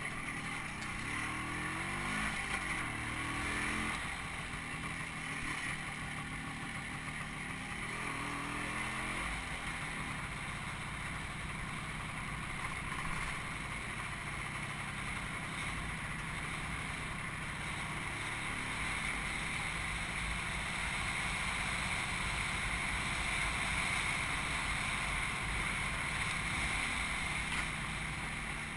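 A vehicle's engine running while riding along, its pitch rising as it speeds up about two seconds in and again about eight seconds in, over a steady hiss of road and wind noise.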